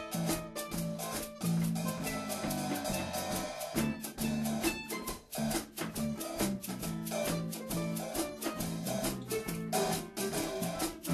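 Instrumental background music with a steady drum beat over a low bass line.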